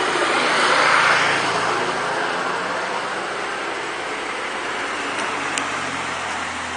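Road traffic: a car passing, its tyre and engine noise swelling to a peak about a second in and then easing to a steady traffic hum.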